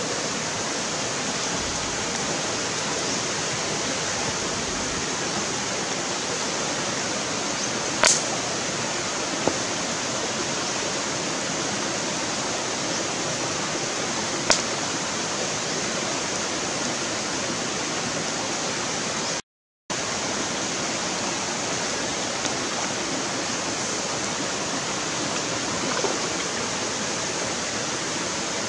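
A shallow stream rushing steadily over rocks, with a few sharp pops and a brief break about two-thirds of the way through.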